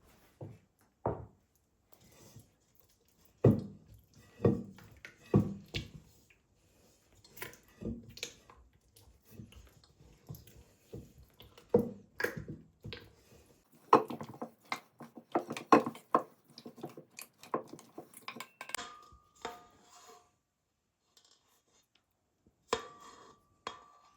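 Kitchenware and household items being handled and set down on a hard surface: irregular knocks, taps and clinks, busiest past the middle, with a few short ringing clinks near the end.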